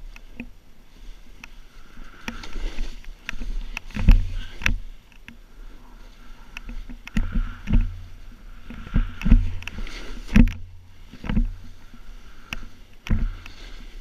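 Snowboard sliding and turning through deep powder snow: repeated swishes of sprayed snow, broken by sharp knocks and heavy thumps as the board hits bumps, loudest about four seconds in and again about nine to ten seconds in.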